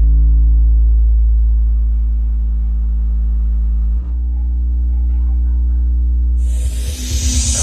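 Electronic dance music played loud on a Flowbeats Hera 3 Pro tower speaker. Long held deep bass notes shift pitch about four seconds in, then a rising noise sweep and a choppy beat come in near the end.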